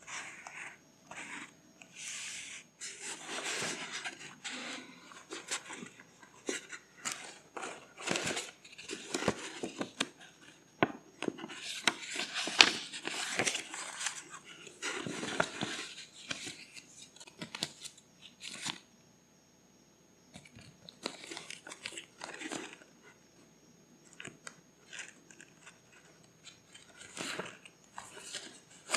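Paper being handled close up for journal crafting: irregular rustling, crinkling and scratchy tearing strokes, with a brief pause about two-thirds of the way through.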